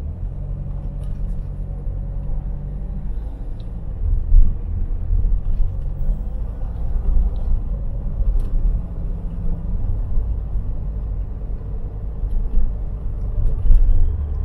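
Steady low rumble of a Ford Cortina Mk3 GXL's engine and road noise, heard from inside the cabin. The rumble swells briefly twice, about four seconds in and near the end.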